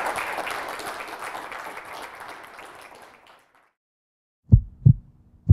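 Audience applause fading out over about three and a half seconds. After a brief silence, low double thumps in a heartbeat rhythm begin near the end.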